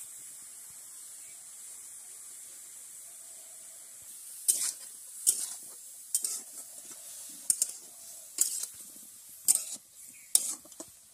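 Vegetables sizzling in a hot metal karahi, a steady hiss, then from about four and a half seconds in a steel spatula scraping and knocking against the pan about once a second, seven or so strokes, as the vegetables are stir-fried.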